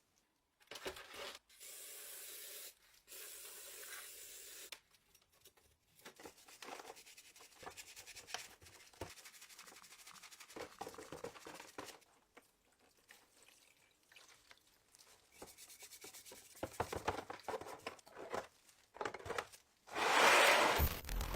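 Rubbing and scraping on the rusty metal of an antique pistol being cleaned, in several separate takes. It starts with two steady hissing stretches of about a second each, goes on with uneven scrubbing, and ends with a louder burst of noise.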